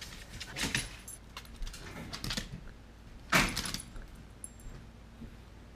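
Metal tag on an adult corgi's collar jingling, with claws clicking on a hardwood floor as the dogs move about. The sounds come in scattered bursts, the loudest about three and a half seconds in.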